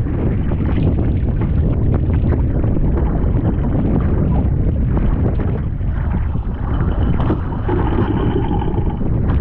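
Strong wind buffeting the microphone over a choppy sea, with water slapping and splashing against the hull of a small outrigger canoe.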